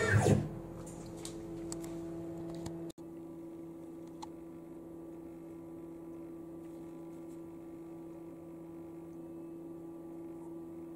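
Steady low hum of workshop machinery, with two constant tones, briefly cutting out about three seconds in.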